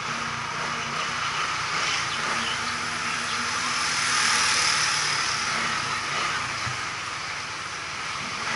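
Street traffic noise: a steady hiss with a faint low engine hum, swelling about four seconds in as a motor scooter passes close by.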